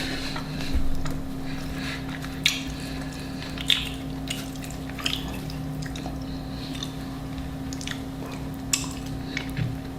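Close-miked chewing and wet mouth sounds: scattered short smacks and clicks every second or so over a steady low electrical hum.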